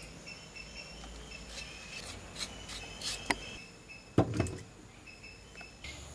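Scattered clicks and knocks of carrots and potatoes being handled, with a low thud about four seconds in as a potato goes into a clay pot of water. A faint, steady insect trill runs behind.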